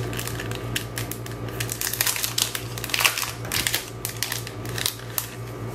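Packet of paper die cuts in a plastic sleeve being handled and opened: a quick, irregular run of crinkles, clicks and rustles.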